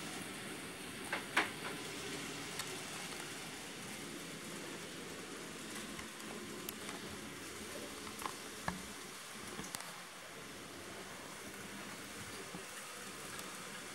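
Model trains running on a layout: a faint steady hiss with a few light clicks scattered through it.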